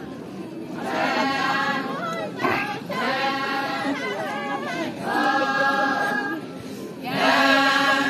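A group of women singing a traditional Naga folk song together in unison, unaccompanied, in phrases of a second or two with short breaths between them.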